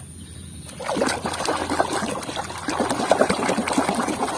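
Water trickling and splashing as a muddy plastic toy is rinsed clean. It starts about a second in as a dense run of small splashes, eases briefly about halfway, then picks up again.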